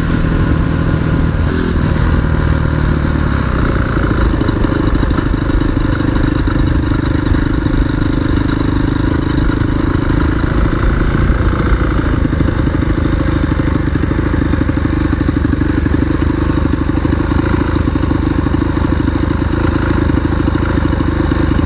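A 250 cc single-cylinder off-road motorcycle engine running steadily while riding at cruising speed, with a steady rush of wind and road noise. The engine note changes about three seconds in.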